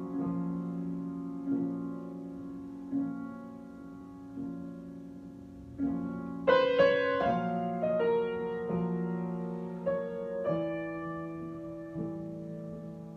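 Solo piano improvisation: slow sustained chords struck about every second and a half, with a brief flurry of quicker, higher notes about halfway through.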